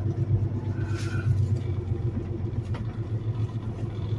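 Semi truck's diesel engine running with a steady low rumble, heard from inside the cab as the truck rolls slowly.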